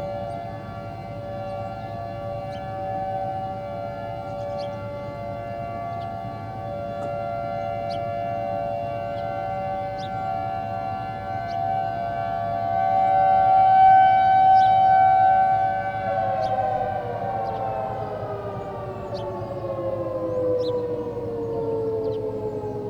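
Outdoor tornado warning siren sounding a steady chord of several tones, swelling louder a little past the middle. About two-thirds through it begins winding down, the whole chord sliding steadily lower in pitch.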